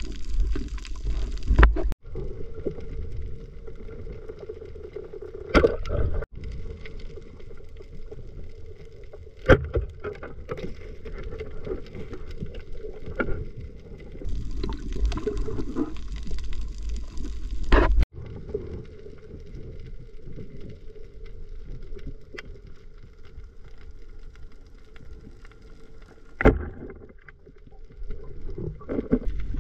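Muffled underwater sound heard through a camera housing: a steady low rumble of moving water, broken by a handful of sharp knocks.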